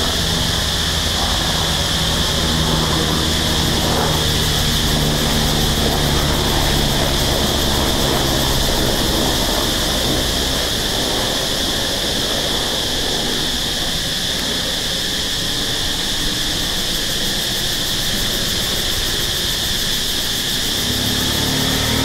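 Dense chorus of insects droning steadily at a high pitch. Underneath is a low engine hum that fades out about halfway through and builds again near the end.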